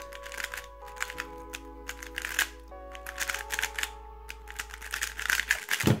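Background music of held notes and chords over the rapid clicking of a 3x3 speedcube's layers being turned during a fast solve.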